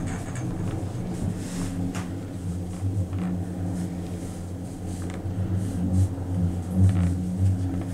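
Steady low hum inside a Doppelmayr eight-seat gondola cabin as it rides the haul rope between towers, with a few faint clicks.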